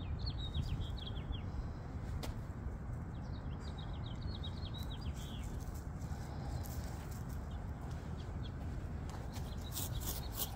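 A songbird chirping in two quick runs of short, high notes, over a steady low rumble.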